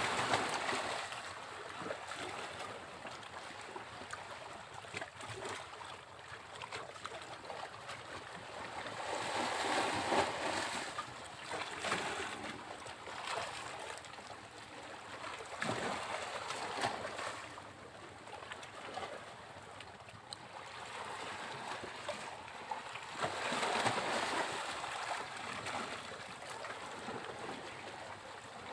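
Sea waves breaking on a beach: a steady wash of surf that swells and eases, with louder surges about ten seconds in, around sixteen seconds, and again near the end.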